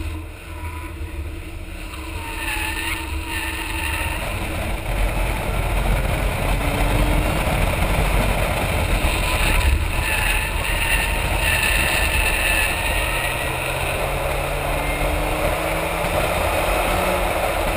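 Car on slick tyres driving along tarmac, heard from beside its front wheel: heavy wind buffeting on the microphone and tyre and road noise, with the engine note rising and falling underneath. The sound builds over the first few seconds, then holds fairly steady.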